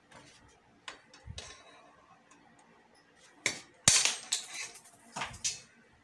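A hammer drives a steel rod, used as a drift, against a motorcycle's steering head bearing cup to knock the cup out of the head tube. After a few light taps, there is a quick series of about six metal-on-metal blows. The second blow is the loudest and rings.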